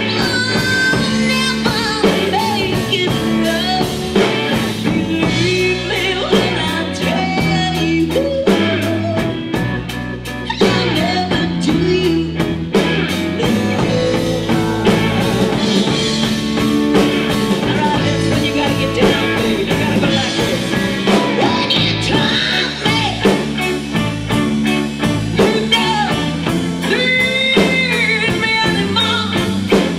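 Live band playing a song with a singing voice over bass, guitar and a steady drumbeat.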